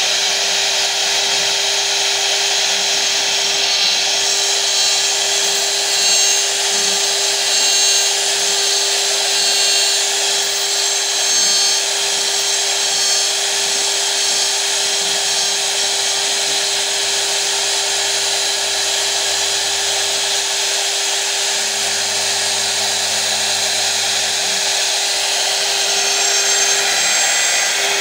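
CNC router spindle running at a steady high pitch while its small bit carves grooves into a wooden board, over a constant hiss of cutting.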